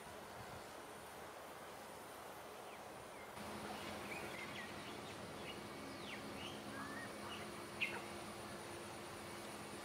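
Faint outdoor hiss, then, after a cut about three seconds in, a steady low hum under a scatter of short, high bird chirps and whistles, some sliding down in pitch, with one sharper, louder chirp near the end.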